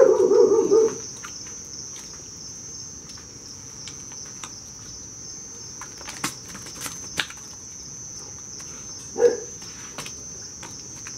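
Crickets chirping as a steady high trill, with a few faint taps and rustles from a nylon cast net being picked over by hand. A short call about a second long opens it, and another brief one comes about nine seconds in.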